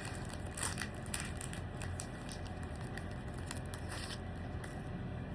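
Foil Pokémon booster pack wrapper crinkling and crackling as it is opened and handled, with scattered small clicks and a couple of louder crackles in the first second or so.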